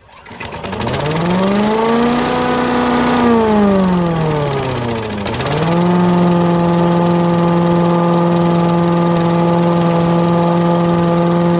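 Craftsman Eager-1 5 hp chipper vac's small gas engine starting on the pull and revving up, sagging down almost to a stall about five seconds in, then picking back up and settling to a steady run. It is running on a carburetor just cleaned of water and gunk in the float bowl.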